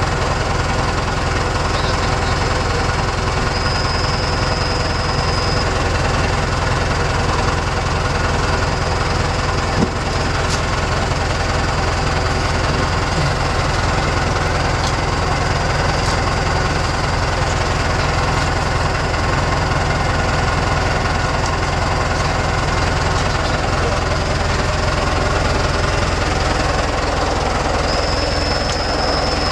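Tractor engine running steadily, heard up close from the machine's seat, with a single brief knock about ten seconds in.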